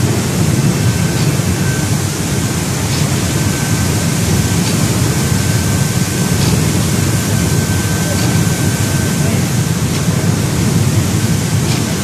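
Bubble-type industrial seaweed washing machine running: water churning and bubbling hard around the kelp from the air-bubble generator and spray pipes, over a steady machine drone. Faint ticks come about every second and a half.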